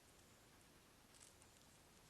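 Near silence: a faint background hiss with a few faint ticks.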